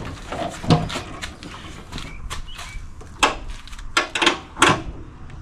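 Several sharp knocks, a cluster of them near the end, as a stiff locking pin on a Walker mower's tilt-up deck is forced over.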